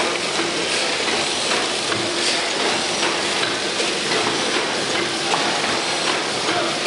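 A 600 hp vintage Snow horizontal gas engine running steadily: an even mechanical hiss and clatter with light regular clicks.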